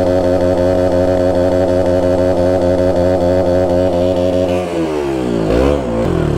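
KTM Duke's single-cylinder engine held at steady high revs with the rear tyre spinning in mud. About three-quarters of the way through, the revs drop and rise unevenly.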